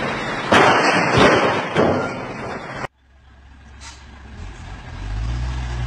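Loud rough noise with several louder surges that cuts off abruptly about three seconds in. After it, a heavy truck's diesel engine runs with a low, steady hum that grows louder.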